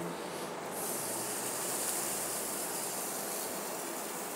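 Milled malt poured in a steady stream from a plastic bucket into the water of a stainless brewing kettle while mashing in. A steady, even noise, a little stronger from about a second in.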